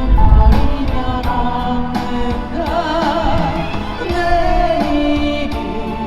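A woman singing a Korean ballad live over instrumental accompaniment. Wind rumbles on the microphone in the first half second.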